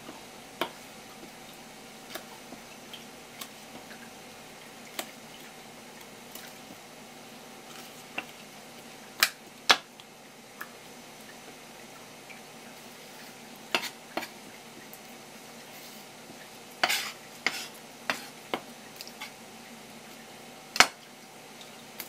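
Kitchen knife and utensils knocking and clicking against a cutting board and dishes during fish preparation, in scattered irregular strokes with a few louder knocks in the middle and near the end, over a steady faint hum.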